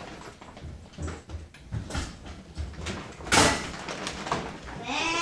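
Puppies playing rough on a hardwood floor: scattered knocks and scuffles of paws and bodies, with one loud sharp knock about three seconds in. A short whine near the end.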